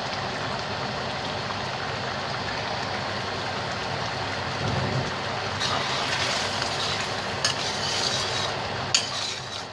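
Thick coconut-milk chicken curry simmering in a steel wok over a gas burner, a steady bubbling hiss. From about six seconds in, a ladle stirs it, scraping around the wok with a couple of sharp knocks against the metal.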